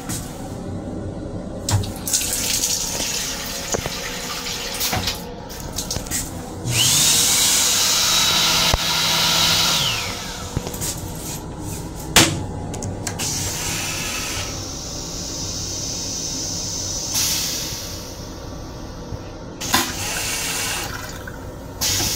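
M7 railcar toilet flushing: a loud rush with a motor whine that spins up about six seconds in, runs for about three and a half seconds and winds down, then water keeps running more quietly. Several sharp clicks over a steady train rumble.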